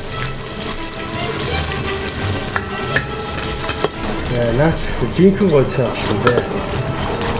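Pieces of sheep tail fat sizzling and frying in a hot metal pot, stirred and scraped with a wooden spatula, with scattered sharp clicks of the spatula against the pot.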